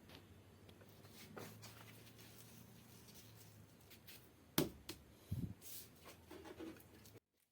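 Homemade wooden band saw running with a steady low hum, with a few knocks about four and a half and five and a half seconds in. The sound cuts off suddenly near the end.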